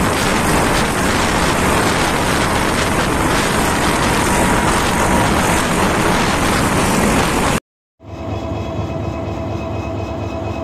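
Broad-gauge passenger train running at speed, heard from an open carriage window: a steady rush of wheel and wind noise. It cuts off suddenly about seven and a half seconds in, and after a moment of silence a quieter, steady sound with a few held tones begins.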